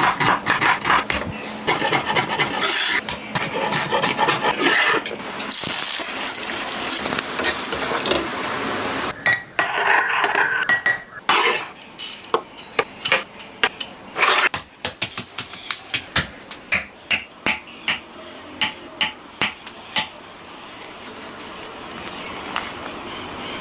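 Cooking sounds: metal utensils clattering and scraping against pots and dishes while food is stirred, then a run of sharp, evenly spaced strikes about one to two a second.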